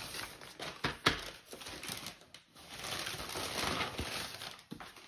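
Brown paper mailer crinkling and rustling as it is handled and pushed aside, with a sharp tap about a second in.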